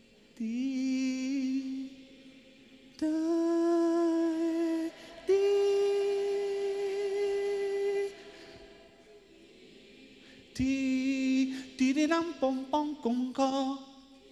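A man's solo voice singing into a microphone: three long held notes, each a step higher than the last, then about ten seconds in a string of short, choppy sung notes.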